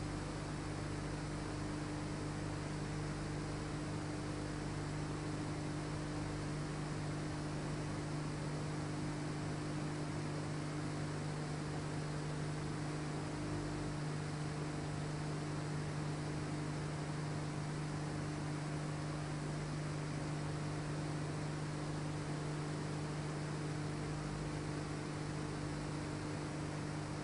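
Steady electrical mains hum over a constant hiss: the background noise of an old recording, with no distinct work sounds.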